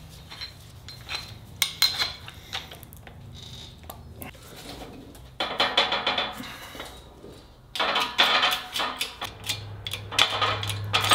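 Steel tools and bearing parts clinking, knocking and scraping as a bearing separator is fitted around a wheel bearing half on a hub spindle and worked to pull it off. Two longer stretches of denser scraping or grinding noise come in the middle and near the end.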